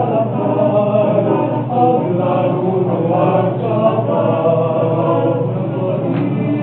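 Male choir singing a cappella in sustained harmony, with a steady low note held under the moving upper voices.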